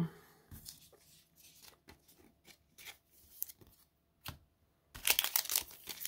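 Cards being handled, with faint light taps and rustles, then about five seconds in a Pokémon card booster pack's foil wrapper being torn open with a loud crinkly tearing.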